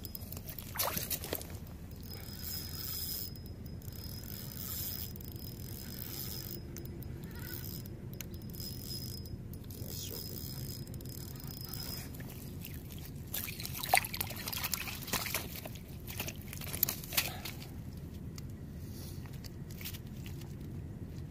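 Rustling and scraping of an angler's coat and fishing gear handled close to the microphone, with a few sharper knocks past the middle, over a steady low hiss. A faint steady high tone runs through the first half.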